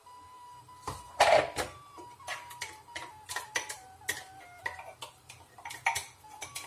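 Spatula scraping and tapping inside a small blender jar as blended chili paste is emptied into a plastic bowl: a series of short knocks and scrapes, loudest a little past a second in.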